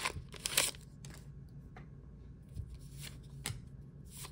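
Pokémon booster pack wrapper crinkling briefly at the start, then Pokémon trading cards being slid and flipped by hand, with a few light ticks.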